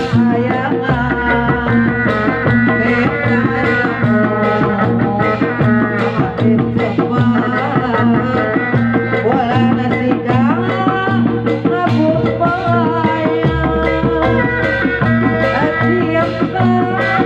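Loud live Sundanese bangreng music through a PA: busy hand-drum and dogdog drumming under a sliding, wavering melody line, playing without a break.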